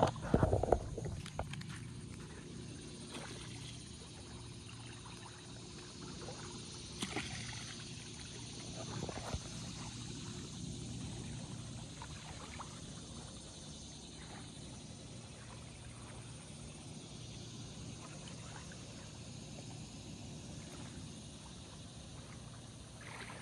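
A catfish on a fishing line splashes as it is dunked in shallow water about a second in, then dangles dripping, with a few small knocks and splashes over a steady low drone.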